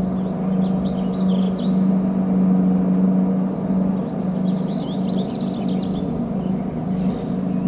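A steady low hum runs throughout, with two short runs of high, rapid chirping bird calls, one near the start and one about two-thirds of the way in.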